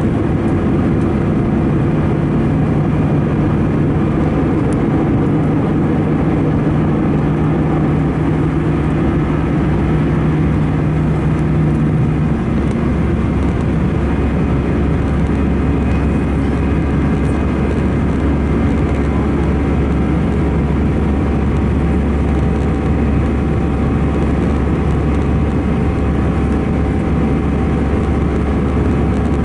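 Airbus A319's CFM56-5B jet engines and airflow heard from inside the cabin, a loud, steady drone. The engine hum shifts about twelve seconds in, as one tone drops away and a deeper rumble takes over.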